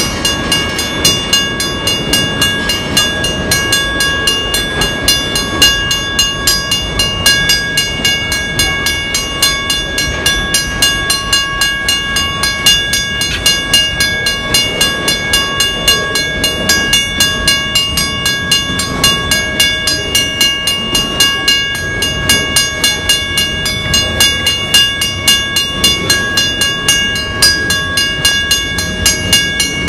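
Canadian Pacific freight train's cars rolling past at speed, the wheels clacking over the rail joints in a quick, continuous rhythm, with a steady high-pitched ringing tone above the rumble.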